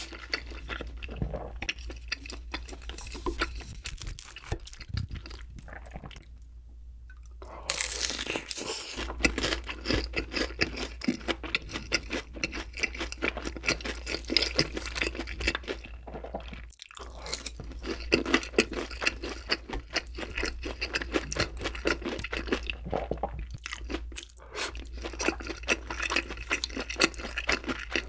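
Close-miked eating sounds: a person chewing and crunching mouthfuls of braised chicken and breaded pork cutlet, dense irregular wet crunches with a short lull about six seconds in.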